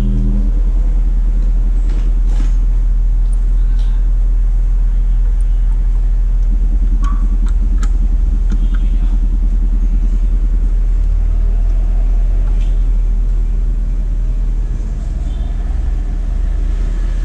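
Steady, loud 40 Hz test tone played through a 12-inch Harman car subwoofer driven by a 4-channel amplifier, a deep constant hum. A few light clicks come from a screwdriver turning the amplifier's low-pass filter knob.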